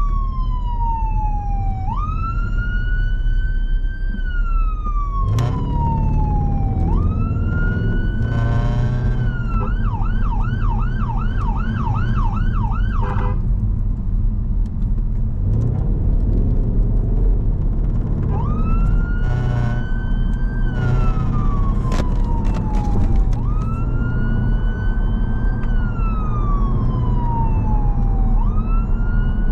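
An emergency response car's siren, heard from inside the cabin. It sounds a slow wail, each cycle rising quickly and falling away over about two seconds. About ten seconds in it switches to a fast yelp for a few seconds, then goes back to the wail, over steady engine and road noise.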